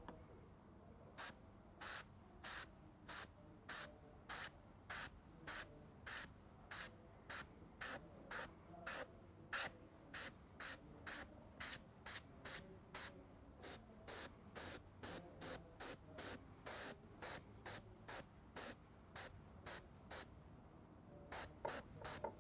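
Airbrush spraying in short bursts of faint hiss, about two a second, as the trigger is pressed and released in quick dabs. There is a brief pause near the end.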